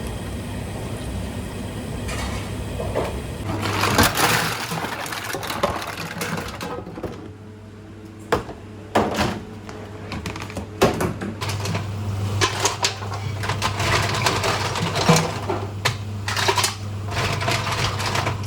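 Kitchen prep clatter: irregular knocks and clicks of utensils and containers being handled, over a steady low hum.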